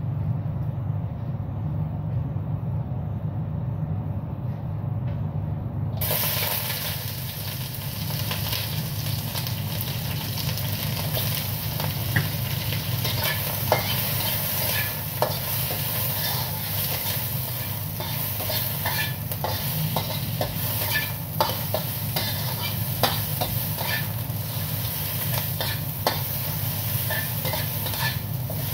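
Sliced onions sizzling in hot oil in a wok, the sizzle starting suddenly about six seconds in as they go into the oil, with a metal spatula scraping and clicking against the wok as they are stir-fried. A steady low hum sits underneath.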